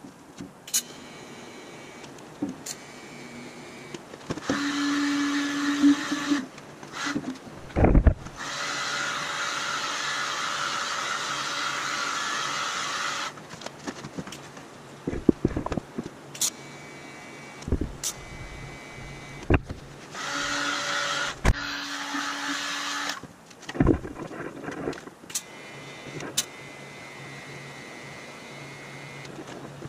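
Several runs of a small electric hand power tool working steel, each a few seconds long with a steady whine, with sharp metallic knocks and clicks between them.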